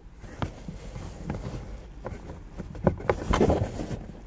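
Scattered clicks, taps and scraping as a mounting bracket is worked into the narrow gap between the van's plastic overhead console shelf and the headliner. The handling is busiest and loudest about three seconds in.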